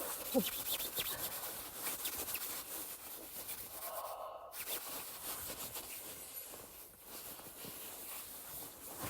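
Clip-on microphone being handled and rubbed against clothing: a dense, scratchy rustle with many close crackles.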